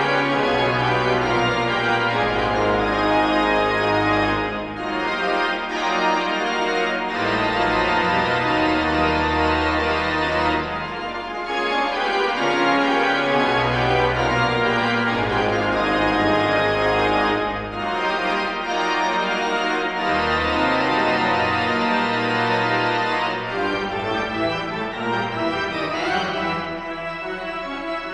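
Pipe organ playing full, sustained chords over held pedal bass notes, with short breaks between phrases about every six seconds.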